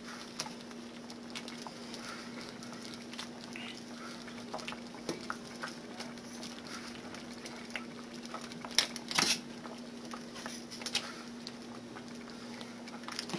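Metal ladle scooping thick chicken pot pie stew out of a stainless steel pot, with soft wet patter and scattered light clinks, and two louder knocks about nine seconds in. A steady low hum runs underneath.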